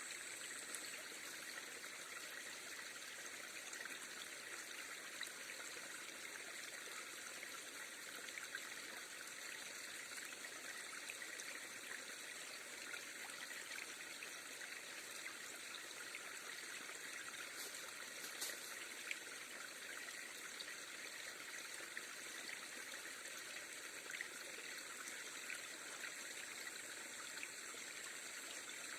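River water flowing steadily, with a few faint clicks a little past halfway and a thin steady high tone near the start and the end.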